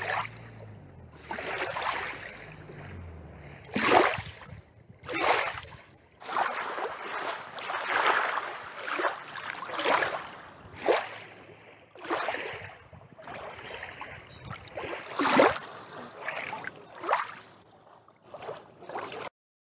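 Small waves lapping and splashing against a rocky shore, in irregular washes about a second apart.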